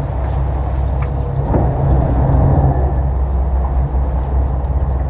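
Sportfishing boat's engines running with a steady low drone.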